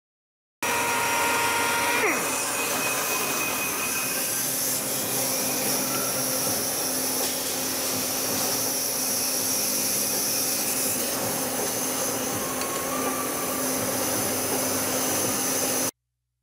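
Steady machine whir and hiss like a vacuum running. About two seconds in, the metal lathe's motor tones stop and drop quickly in pitch as it winds down.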